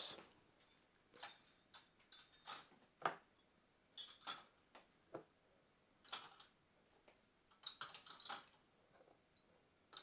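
Ceramic mugs and glass tumblers being set into a dishwasher's wire top rack: scattered light clinks and knocks, with a quicker run of them late on.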